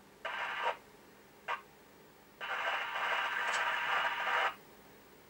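Ford Roadmaster 500 FM CB radio's speaker hissing with receiver noise, switching on and off as the squelch opens and closes: a half-second burst, a brief blip about a second and a half in, then a steady rush of hiss for about two seconds that cuts off sharply.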